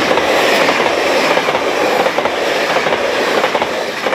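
Double-deck passenger train passing close by at speed: a loud rush of wheels on rail with rapid clicks as the wheels run over the rail joints, starting to fade near the end as the last carriage goes by.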